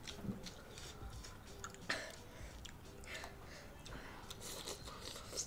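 Quiet eating sounds: metal forks clicking on ceramic bowls and noodles being chewed and slurped, with scattered small clicks and one sharper knock about two seconds in.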